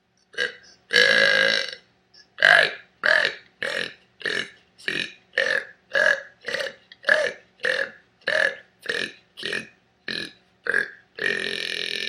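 A person burping: a long burp about a second in, then a quick run of about sixteen short burps at nearly two a second, and another long burp near the end.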